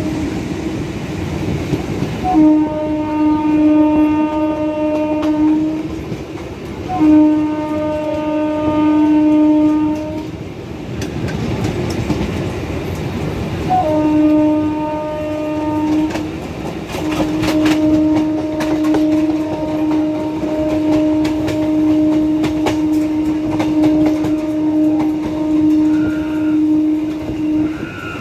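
Electric local train's horn sounding four long blasts on one steady pitch, the last lasting about ten seconds, over the rumble and clickety-clack of the wheels as two EMU trains run side by side on parallel tracks.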